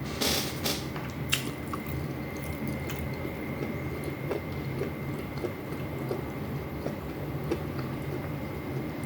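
Close-up chewing and mouth smacking of a person eating soft fish and rice. There are a few sharper smacks in the first second and a half, then quieter, irregular chewing clicks.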